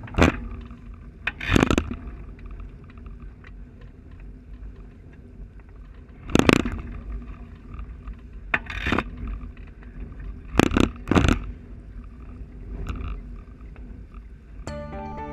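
Onboard sound of a Thistle sailing dinghy under way in a fresh breeze: steady rushing wind and water noise, broken at irregular intervals by about six loud, short bursts of noise, as gusts and waves hit the boat and the camera.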